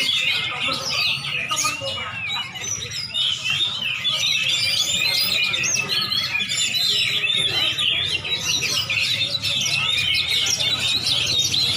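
Many caged competition songbirds, lovebirds and kacer (Oriental magpie-robins), singing and chirping at once in a dense, unbroken chorus of overlapping quick chirps, whistles and trills.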